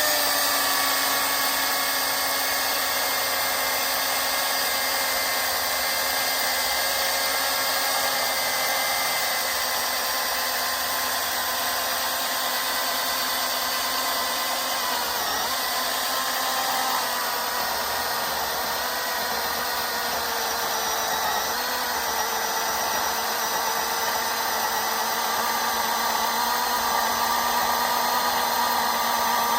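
Milwaukee M18 battery-powered chainsaw with a 16-inch bar running under load, its motor whining steadily as the chain cuts through a log about 20 inches thick. The pitch dips briefly about halfway through and again a few seconds later.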